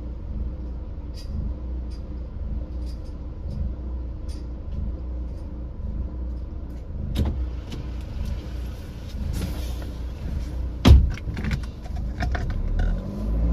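Car driving along a road: a steady low rumble with scattered small rattles and clicks, and one loud knock about eleven seconds in.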